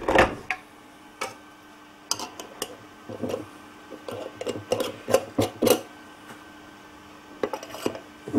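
Metal screw-on lid being twisted onto a glass mason jar: the threads scrape, with scattered clicks and knocks of glass and metal.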